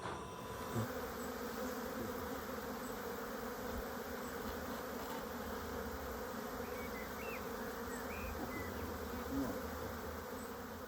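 Honeybees buzzing steadily around an open hive, a dense even hum.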